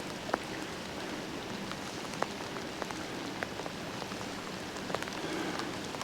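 Heavy rain falling steadily, a constant hiss with individual drops ticking sharply here and there.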